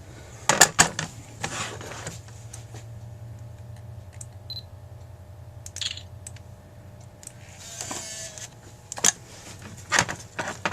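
Scattered clicks and taps of small metal carburetor parts and hand tools being handled during a teardown, with a brief rasping sound about eight seconds in.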